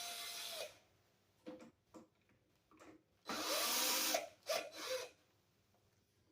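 Cordless screwdriver running in short bursts, a steady motor whine under a buzz, while the screws holding the feeder's siding are taken out. One run stops about half a second in. Small clicks follow, then another run of about a second a little past the middle, and two brief spurts after it.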